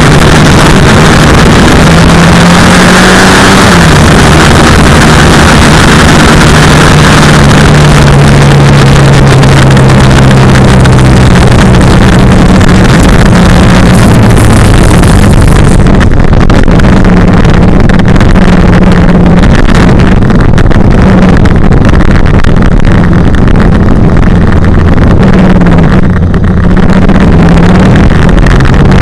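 Racing sidecar outfit's engine, recorded on board and overloading the microphone, its pitch rising and falling as it is revved and shifted. About halfway through, the loud rushing hiss fades away, and the engine runs lower and more unevenly as the outfit slows.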